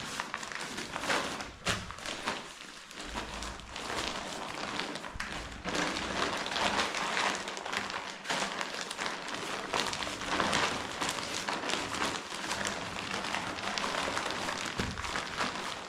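Rustling of the Decathlon MH100 tent's fabric being folded and handled for packing, with a few dull thumps.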